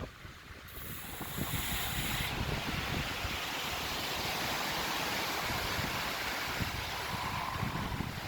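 Strong wind blowing: a steady rush with gusty low buffeting on the microphone.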